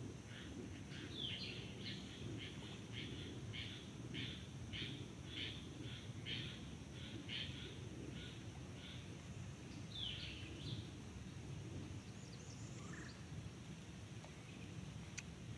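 Faint outdoor ambience: a bird chirping over and over, short falling chirps about two a second that thin out after about nine seconds, over a steady low rumble.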